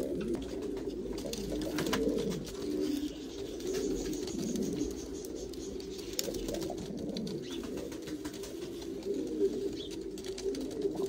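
Spanish pouter (buchón) pigeons cooing in low, rolling coos that run on without a break: the courtship cooing of a cock with his crop puffed up, displaying to a hen.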